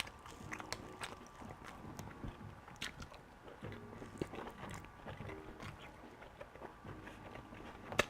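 Close-miked chewing and biting of breakfast food, with many short mouth clicks and one sharp click near the end.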